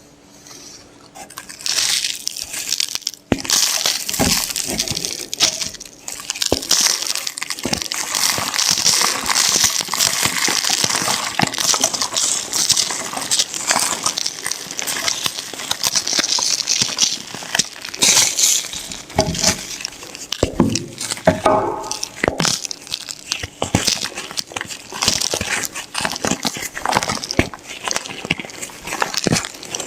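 White Plain Jane gym chalk being crushed and crumbled by hand close to the microphone: dense crackling and crunching packed with sharp little snaps, starting about two seconds in.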